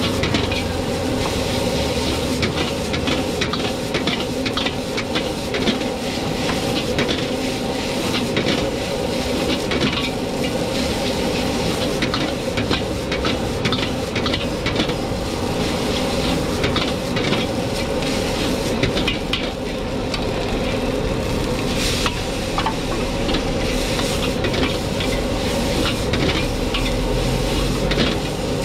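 Egg fried rice being stir-fried in a wok: a metal wok ladle and spatula scrape and clack against the pan in quick, irregular strokes while the rice sizzles.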